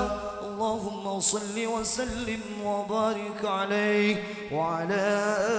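A solo male voice chants an unaccompanied, melismatic sholawat line in Arabic, the pitch wavering and gliding through long ornamented phrases over a low held tone, with no drumming.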